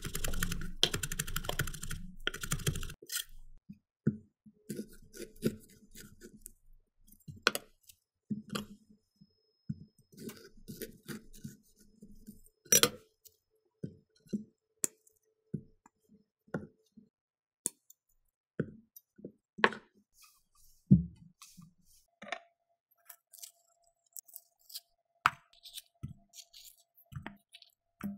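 Chef's knife rapidly chopping cilantro on a wooden cutting board for about the first three seconds. Then come scattered separate knocks and clicks as avocados are halved and pitted on the board and their flesh is scooped with a spoon into a stainless steel bowl.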